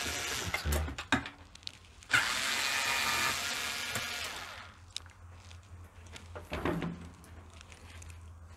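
Cordless screwdriver whirring as it backs out Torx T15 screws from a dishwasher door: one run that stops about a second in and a longer run of about two and a half seconds starting around two seconds in. It is followed by a few light clicks.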